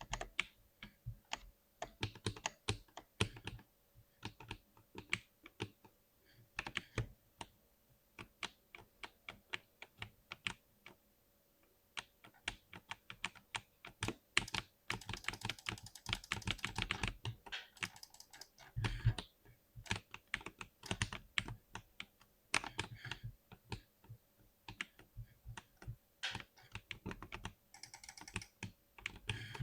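Typing on a compact 60% mechanical keyboard: irregular key clicks, with a short pause a little before halfway, followed by a stretch of fast, continuous typing.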